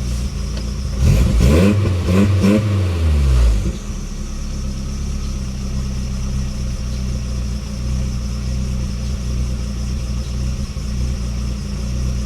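1996 Nissan pickup engine idling, an idle the owner calls rough. About a second in it is revved up briefly, its pitch rising and then falling back to idle after about three seconds.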